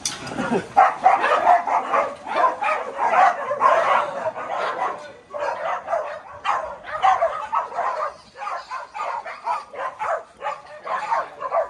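A large pack of dogs barking and yipping excitedly, many at once, with brief lulls about five and eight seconds in.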